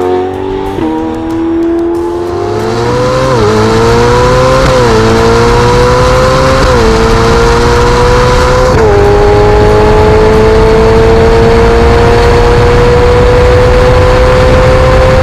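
Ferrari 488 Pista's twin-turbo V8 with a Novitec exhaust under hard acceleration, its pitch climbing and dropping sharply at each of several quick upshifts, then rising slowly and steadily in a high gear.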